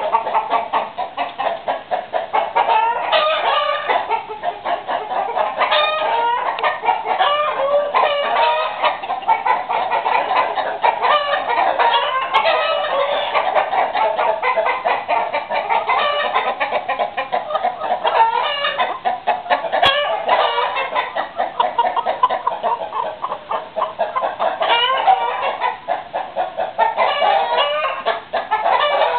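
A flock of chickens, hens and roosters together, clucking continuously, with louder, longer calls rising above the clucking every few seconds.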